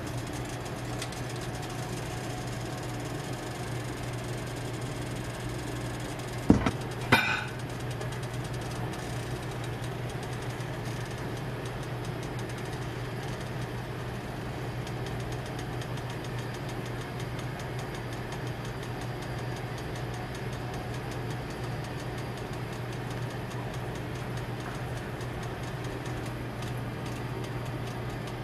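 Steady low machine hum, like a motor or fan running, with two sharp knocks about six and a half and seven seconds in.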